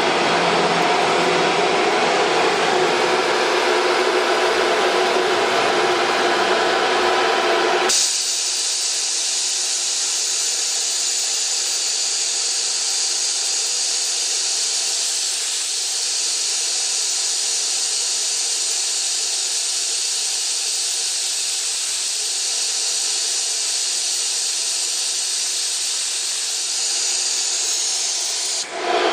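ATC 1325 CNC router running. About 8 seconds in, its steady machine noise gives way abruptly to a steady high-pitched hiss, which lasts almost to the end.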